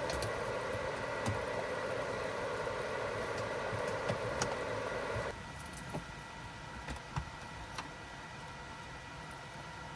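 A steady running hum that cuts off suddenly about five seconds in, with a few light clicks and taps scattered through.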